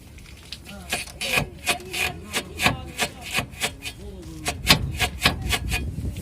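Torn rear rubber silent-block bushing of a Chevrolet Aveo's front lower control arm creaking and grating as the suspension works, in a quick repeated rhythm of about three strokes a second. The bushing has begun to separate from its outer metal sleeve at a tear, and that separation is the cause of the creak.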